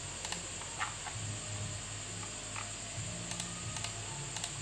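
A few scattered short clicks from a computer mouse and keyboard as someone works in editing software, with a steady electrical hum and hiss underneath.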